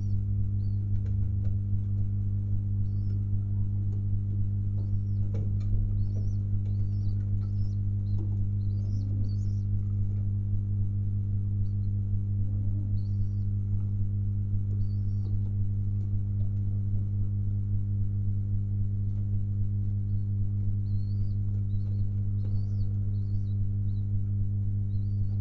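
A steady low hum runs under the loft sound. Faint high chirps repeat in small groups over it, and domestic pigeons give a few soft, low coos.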